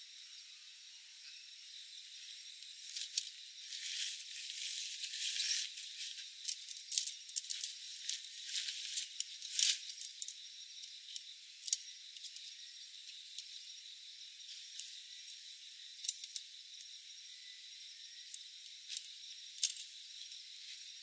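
Tent fabric rustling, then scattered sharp clicks as shock-corded tent pole sections are handled and snapped together at their metal ferrules, over a faint steady high hiss.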